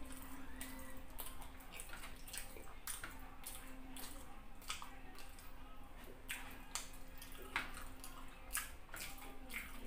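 Close-miked wet eating sounds: chewing with lip smacks, sticky clicks and squishes as fingers pull apart fufu and stewed chicken. The clicks come irregularly, several a second, over a low steady hum.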